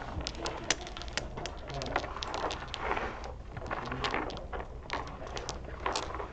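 Dominoes clicking against one another and on a wooden tabletop in many quick, irregular clacks as players draw their tiles and stand up their hands.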